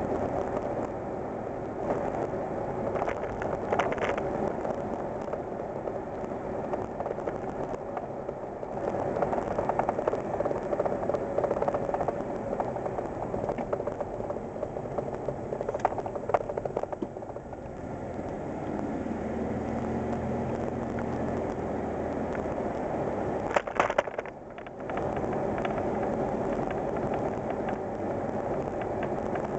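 A 1987 Ford Ranger's 2.9 L Cologne V6 running with road noise, heard from inside the cab while driving. A brief clatter of clicks comes about four-fifths of the way through.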